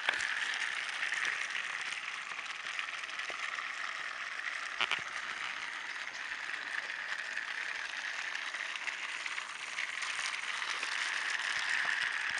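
Battery-powered Motorized Railway toy engine, Snowy Hiro, running on its plastic track: a steady whirr of the small motor and gears, with a single click about five seconds in.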